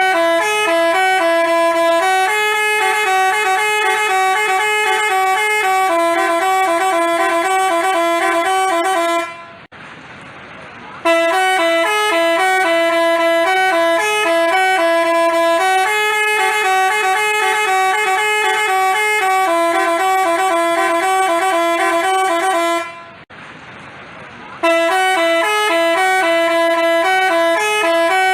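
Telolet basuri bus horn playing a tune: a run of loud, stepped horn notes that repeat a short melody. It breaks off twice for a second or two, about ten seconds in and again about twenty-three seconds in, leaving only a hiss, then starts the tune again.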